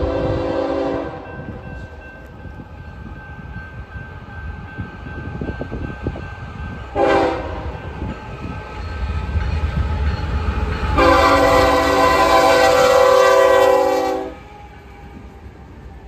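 Raised Nathan K5HL air horn on a GE Evolution (GEVO) locomotive sounding the grade-crossing signal: the end of a long blast about a second in, a short toot about seven seconds in, then a loud long blast for about three seconds. Under it the diesel locomotives' rumble grows as the train reaches the crossing.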